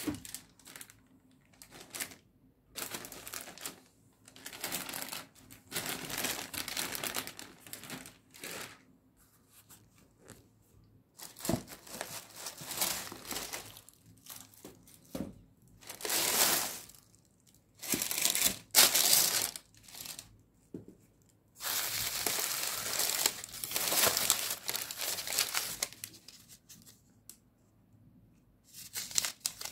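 Tissue paper in a shoe box rustling and crinkling as sneakers are handled and lifted out, in short bouts of a second or two with quiet gaps between.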